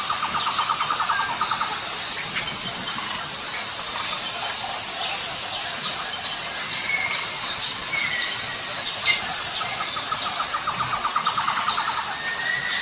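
Outdoor wildlife ambience: a steady high-pitched insect drone, with rapid trilling calls at the start and again near the end, and a few short chirps.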